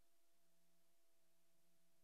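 Near silence: a silent film track with only faint hiss and a faint steady hum.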